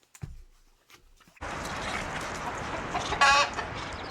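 Steady rushing barn noise that sets in suddenly about a second and a half in, with one short, high-pitched animal squawk a little after three seconds.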